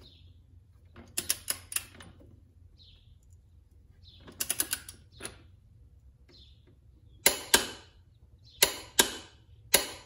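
Click-type torque wrench tightening a motorcycle rear axle nut to 47 ft-lb. Small runs of quick clicks about a second in and again around four and a half seconds, then loud, sharp clicks in pairs in the last three seconds as the wrench reaches its setting and breaks over, about three times.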